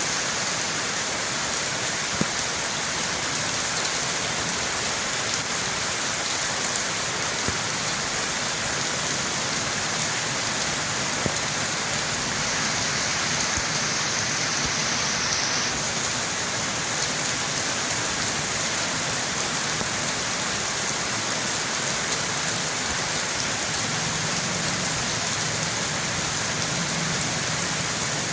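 Steady rain falling: an even hiss with a few sharper drop ticks.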